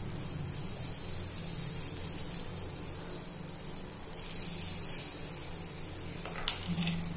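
Batter sizzling softly in a hot, oiled appe pan as spoonfuls are dropped into its cups, over a steady low hum. A short knock about six and a half seconds in.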